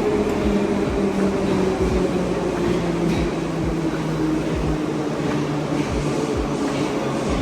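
Metro train pulling into the station, its motor whine falling slowly in pitch as it brakes, with scattered low thumps.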